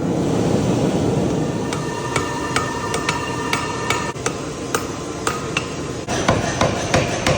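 Hammer blows forging a steel knife blade, struck at a steady two or three a second, each with a metallic ring. The blows come faster after about six seconds, over a steady rushing noise.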